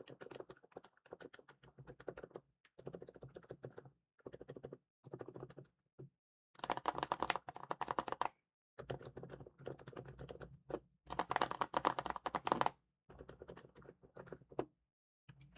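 Typing on a tape-modded, foam-filled mechanical keyboard fitted with silent switches: soft, thocky keystrokes in quick runs of a second or two with short pauses between, the runs about 7 and 11 seconds in louder than the rest.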